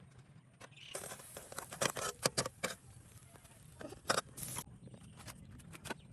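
Kitchen utensils clicking and scraping against cookware in an irregular series of short knocks and scrapes, densest about a second in and again around four seconds in.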